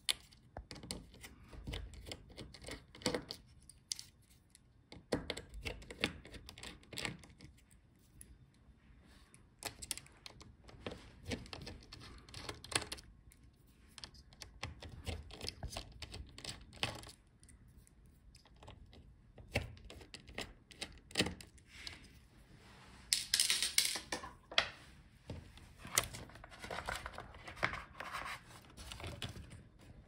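Scattered small clicks and taps of a screwdriver and hands working the hinge screws on a laptop's metal and plastic chassis. A louder scraping rustle comes about two-thirds of the way through, and another near the end.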